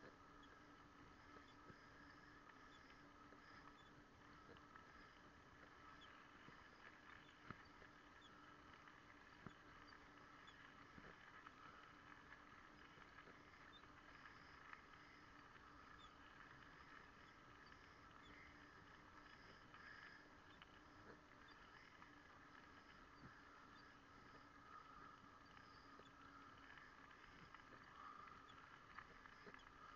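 Near silence: a faint steady hiss with a few thin, steady whining tones and scattered faint ticks.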